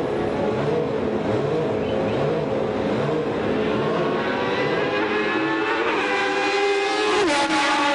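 Formula One car engine running at high revs, its pitch climbing as the car accelerates away. It drops sharply at an upshift about seven seconds in, then starts climbing again.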